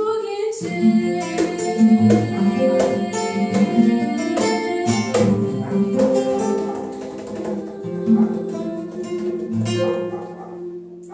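Live acoustic guitar played with a hand drum (conga) at the close of a song. The strumming and drum strikes run on steadily, then thin out and die away near the end.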